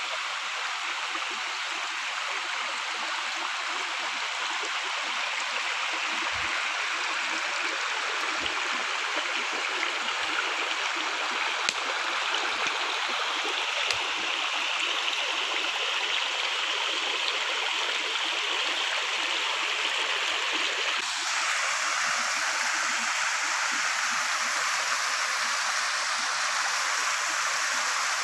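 Steady rush of a waterfall's falling and flowing water. The sound shifts abruptly and gets a little louder about three quarters of the way through.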